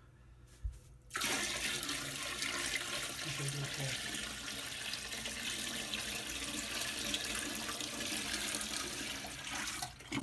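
About four gallons of water poured steadily from a bucket into a toilet bowl, a continuous rushing splash that starts about a second in and stops abruptly near the end.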